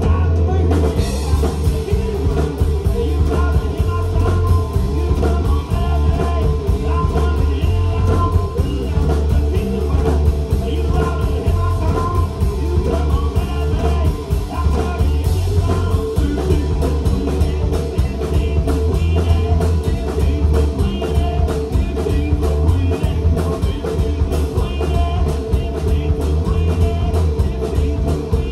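Live rock band playing a song: drum kit and electric guitars with a singer.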